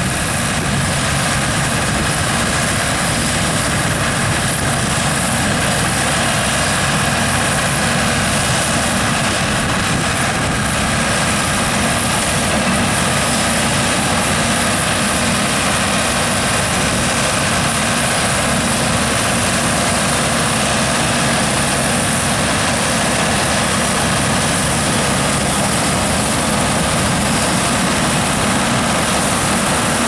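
John Deere 2120 diesel tractor running steadily under load while driving a Massey Ferguson Sunshine 585 trailing combine harvester through its PTO. The tractor's engine drone is mixed with the constant whir of the combine's threshing machinery as it harvests wheat.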